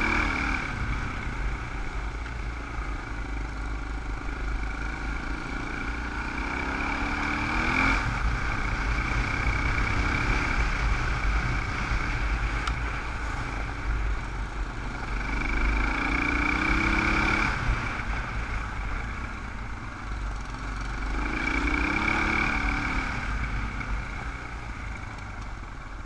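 Dual-sport motorcycle engine running beneath the rider, its revs climbing and dropping several times as it is throttled along. Heavy wind rumble on the helmet-mounted microphone runs under it.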